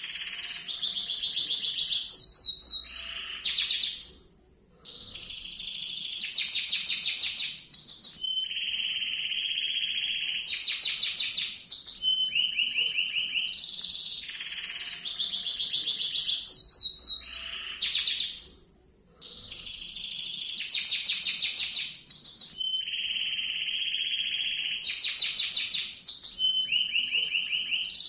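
Domestic canary singing a long rolling song: rapid trills and rolls, one phrase straight after another, with a short break about four seconds in and again about nineteen seconds in. The same run of phrases comes round about every fourteen seconds.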